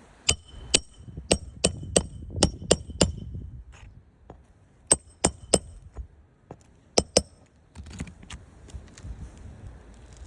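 Hammer driving roofing nails into an asphalt shingle. Sharp metallic strikes come in quick runs: about eight in the first three seconds, three more around five seconds in, and two around seven seconds in.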